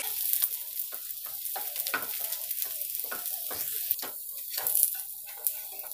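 Ragi flatbread sizzling in oil on a flat dosa pan, with a flat spatula scraping and tapping against the pan in short irregular strokes as the broken pieces are turned.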